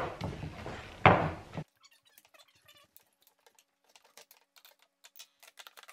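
Metal spatula cutting brownies in a glass baking dish: a sharp clink against the glass about a second in, then only a few faint clicks and taps as the sound drops almost to silence.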